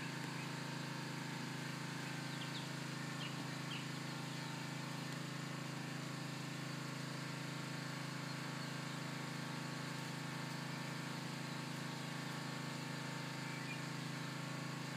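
A steady low machine hum that does not change, with a few faint short high chirps about three seconds in.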